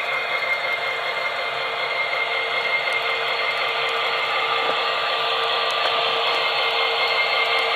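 Two consisted model diesel locomotives, an MTH SD70M-2 with Proto-Sound 3 and an Athearn AC4400 with a Tsunami sound decoder, running together with their sound systems playing steady diesel engine sound. The sound is thin and small-speaker-like, with a few steady whining tones in it, and it grows slightly louder.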